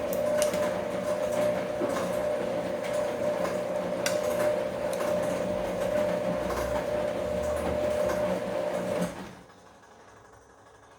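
Bosch Komfort-Klasse washing machine running its drum motor with a steady whine and hum, the load knocking and clicking as it tumbles; the motor stops suddenly about nine seconds in, as the drum pauses between turns.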